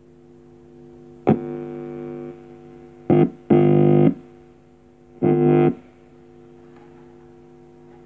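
Loud electric buzz from a small wooden-box speaker, coming in four sudden bursts: one about a second in that drops to a softer buzz, then a short and a longer one around three and a half seconds, and a last one near five seconds. The bursts drive the homemade LED VU meter, lighting its bars. A steady, faint amplifier hum runs underneath.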